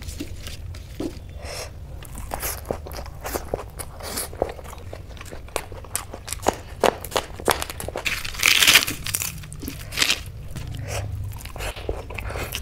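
Close-up eating sounds: crunchy bites and chewing, including a bite of a raw spring onion stalk, with a loud crisp crunch about two-thirds of the way through. A low steady hum runs underneath.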